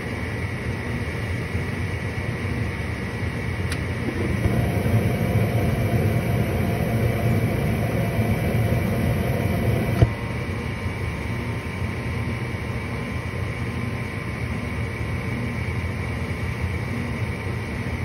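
Gas furnace draft inducer motor running steadily with a steady hum. A click a little under four seconds in is followed by the whoosh of the gas burners lighting and burning for about six seconds. Then a sharp click as the gas valve shuts and the flame drops out while the inducer keeps running: the burners fail to stay lit.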